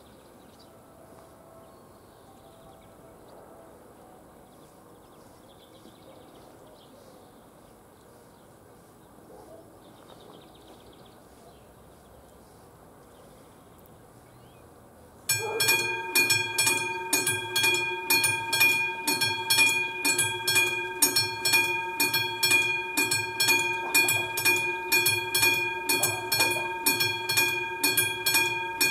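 Quiet open-air background for about fifteen seconds. Then the AŽD 71 level-crossing warning signal's electric bell starts ringing suddenly and keeps up a steady stroke of about two rings a second, the crossing's warning that a train is approaching.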